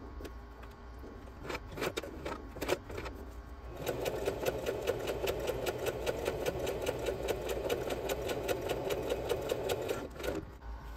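Singer electric sewing machine stitching through a folded strip of canvas. A few separate clicks come first, then a steady run of rapid, even stitching starts about four seconds in and stops about a second before the end.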